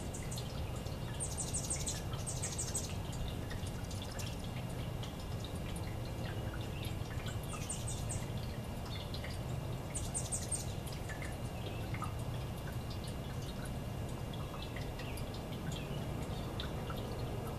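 Water trickling and dripping from the spouts of a tiered copper leaf-dish fountain, with scattered light drip ticks over a steady low hum. Four short bursts of rapid, high ticking stand out: two in the first three seconds, one about eight seconds in and one about ten seconds in.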